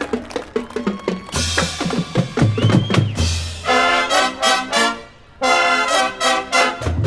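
Marching band drumline playing a busy rhythmic passage on snare and bass drums, then the brass comes in about halfway through with short, punchy chords, breaking off briefly just after five seconds before the next hits.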